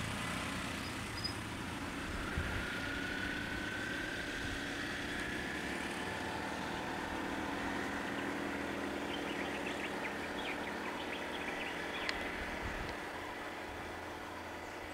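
Motor vehicle engines running steadily at low level: a motorcycle and nearby truck idling and pulling away along a road.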